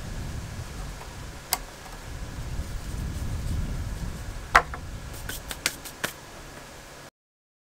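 Sharp wooden knocks and clicks as a shaped wooden patch piece is pressed into and lifted out of the broken felloe of a wooden cartwheel: one knock about a second and a half in, the loudest about four and a half seconds in, then a quick run of lighter clicks. A low rumble lies under the first half, and the sound cuts out suddenly near the end.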